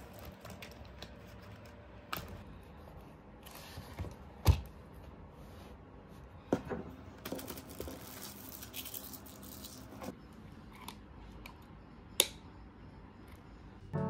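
Objects being handled and set down on a desk, including a tablet case and small boxed-milk cartons. Scattered light knocks and taps, the loudest about four and a half seconds in, with stretches of rustling and sliding between them.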